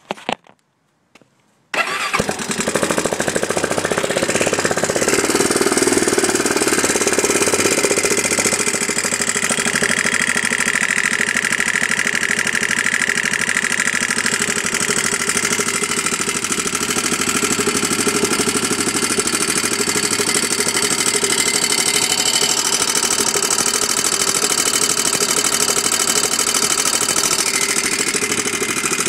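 A 2001 Honda 400EX ATV's single-cylinder four-stroke engine starts about two seconds in and then runs steadily. The running engine carries the noise problem the owner has been dealing with.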